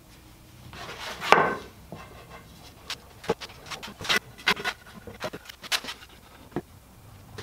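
Wooden frame pieces being handled and set against each other on a wooden workbench during a glue-up. There is a loud scrape-and-knock about a second in, then scattered short, light knocks and taps.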